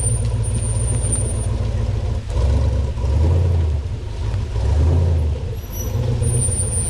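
Off-road 4x4 engine running at low revs, with two louder surges of throttle in the middle before settling back.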